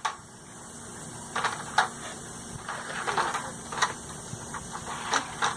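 A few scattered light clicks and knocks, with handling noise between them.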